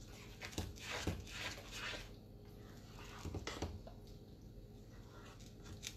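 Spoon stirring thick chili in a pot on the stove: soft wet squishing, with light knocks and scrapes of the spoon against the pot, several in the first two seconds and a couple more about halfway through.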